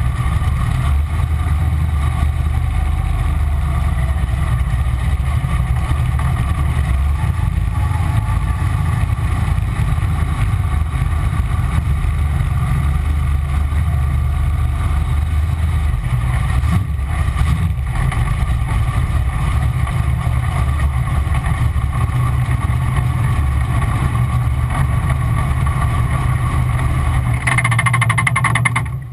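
Wesco-built 557 Ford big-block V8 in a McKellar V-drive boat, running at a steady speed under way. The level drops off sharply at the very end as the engine comes off.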